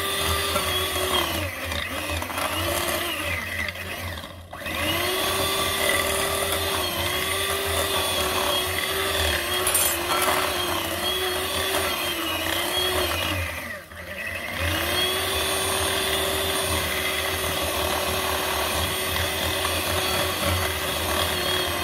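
Electric hand mixer running, its beaters creaming butter, sugar and oil in a glass bowl. The motor's whine wavers in pitch and dips briefly twice, about four seconds in and again about fourteen seconds in.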